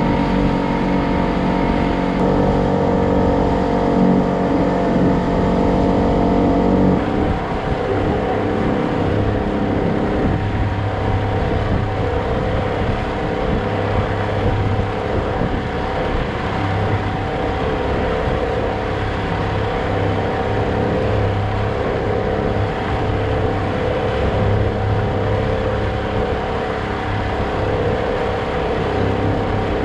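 Small motorboat's engine running steadily while under way, with water and wind noise. The engine note changes abruptly about seven seconds in.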